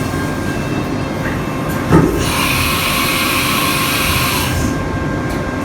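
CNC mill with a fourth axis running while drilling a hole in a machine carriage part: a steady machine hum, a short knock about two seconds in, then a hiss lasting about two and a half seconds.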